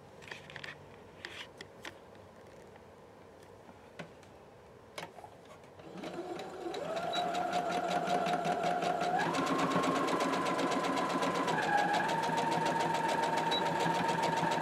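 Electric sewing machine stitching through layered fabric and batting. After a few faint handling clicks, the motor starts about six seconds in and runs with rapid needle ticking, its whine stepping up in pitch as it speeds up and then easing slightly.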